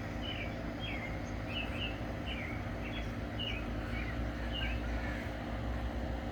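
A bird chirping: a run of short, high, falling chirps, about two a second, that fade out near the end. A steady low hum runs underneath.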